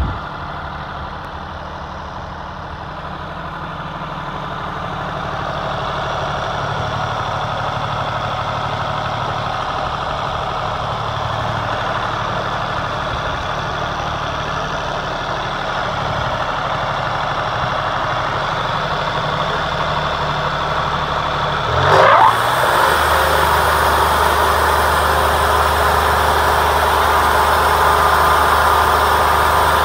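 Wood-Mizer LT40 portable band sawmill running steadily, its engine under load as the band blade cuts lengthwise through a walnut log. About three quarters of the way through there is a brief louder sweep in pitch, and after it the engine note is deeper and steadier.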